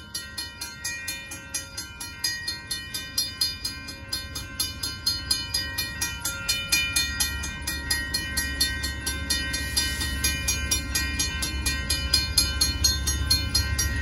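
Railroad crossing bell ringing in rapid, even strokes. A low rumble from the approaching Amtrak train grows louder from about halfway through.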